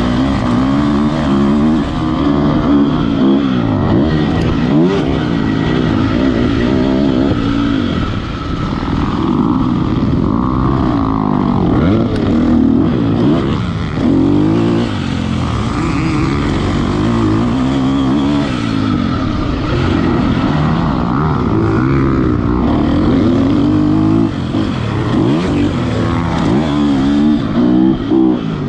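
KTM motocross bike's engine revving up and dropping off again and again as the rider accelerates, shifts and rolls off around a dirt track, heard on board the bike.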